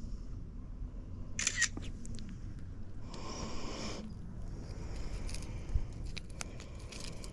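Handling noise close to a body-worn camera: a sweatshirt sleeve brushes against it in two short bursts, about one and a half and three seconds in. Small scattered clicks follow as a jerkbait's hooks are worked out of a small bass's mouth, over a steady low rumble.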